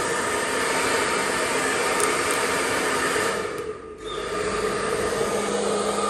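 Pet-grooming blow dryer running with a steady rushing hum. About three and a half seconds in it dips briefly, then comes back with a slightly lower motor hum.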